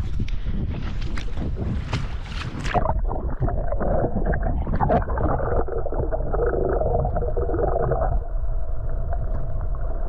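Wind and water splashing at the sea surface, then, about three seconds in, the camera goes under: the sound turns suddenly muffled into a steady underwater rush of moving water and bubbles.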